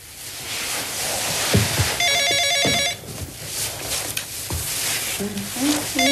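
Telephone ringing with a trilling electronic ring: one ring about two seconds in and the next starting near the end. A loud rushing noise and a few dull thuds fill the first half.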